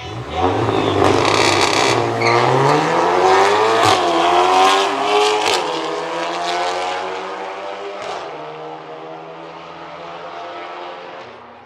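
A VW Golf R mk7 and a Mercedes A-class hatchback launching hard from a standing start, side by side. The turbocharged four-cylinder engines rise in pitch through two or three quick upshifts, with a few sharp cracks in the first seconds, then fade as the cars pull away down the strip.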